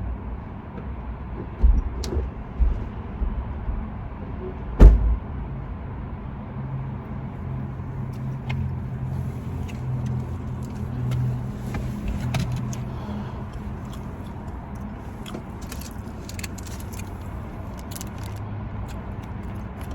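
Steady low rumble of a car heard from inside, with a few sharp thumps in the first five seconds; the loudest comes about five seconds in.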